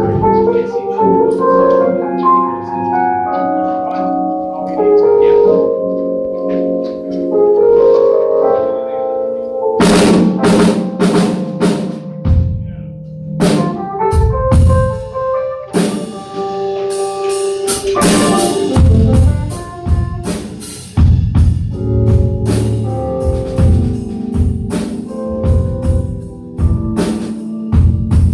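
Live band playing: a keyboard plays chords alone, then a drum kit comes in about ten seconds in, with kick drum and cymbals, and the keys carry on over it.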